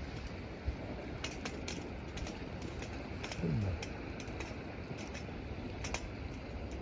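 Steady rushing of river water and wind, broken by scattered sharp clicks and ticks. About halfway through comes a short low sound that falls in pitch.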